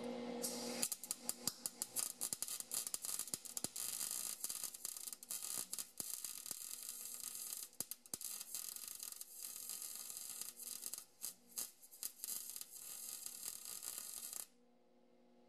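Electric welding arc crackling and popping steadily as steel frame tube is welded, with a couple of brief breaks, stopping suddenly near the end.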